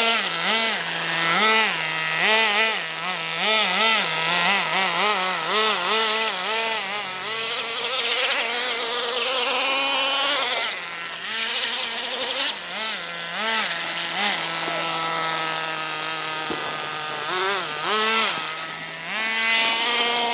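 Small nitro glow engine of an RC 4x4 truck, a high buzzing note revved in quick repeated throttle blips, with steadier held stretches between the bursts of blips.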